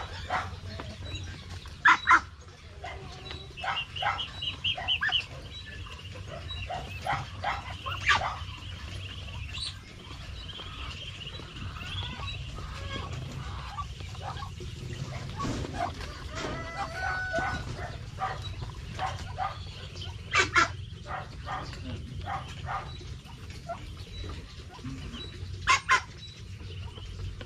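Backyard chickens clucking and young birds peeping in a poultry yard, with quick runs of high peeps and a few louder sharp calls about two seconds in, around twenty seconds in and near the end.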